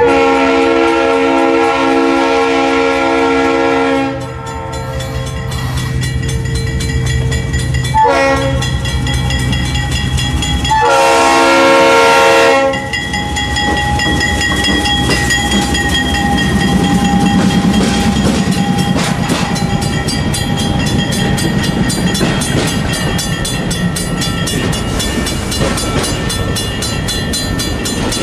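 Freight train led by a GE Dash 8-40CW diesel locomotive sounding its air horn: a long blast, a brief toot about eight seconds in, and another long blast near the middle. The locomotive's engine then rumbles past close by, and the lightweight RoadRailer trailers roll on with a rhythmic clicking of wheels over the rail.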